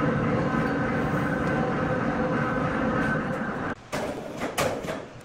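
Horizontal band sawmill running, a steady mechanical drone with several steady tones that cuts off abruptly about two-thirds of the way in. A few sharp knocks follow near the end.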